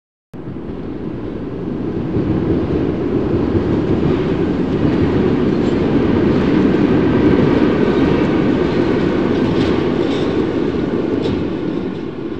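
Freight train passing close by: a steady rumble and rattle of the cars on the rails that starts suddenly, swells to a peak in the middle and eases off, with a few brief sharp high sounds in the second half.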